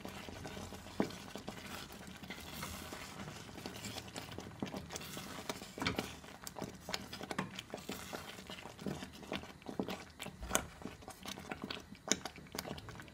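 Wooden spoon stirring thick, cooked-down lentils in a stainless steel pot, making irregular soft scrapes and small wet clicks. The lentils have absorbed almost all their cooking water.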